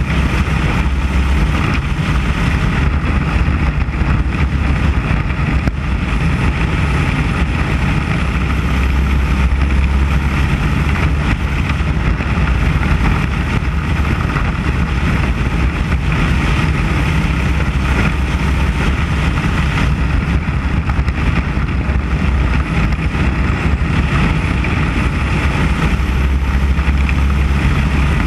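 600 Mini Cup race car's 600cc motorcycle engine running hard at racing speed, loud and continuous, swelling at intervals through the laps, heard from the car's hood with wind noise on the microphone.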